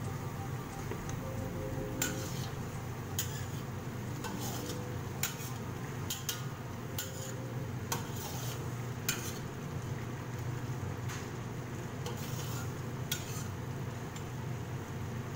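A metal ladle stirs and scrapes through shredded radish simmering in water in a large metal wok. About ten sharp clinks of the ladle against the pan sound over a steady low hum.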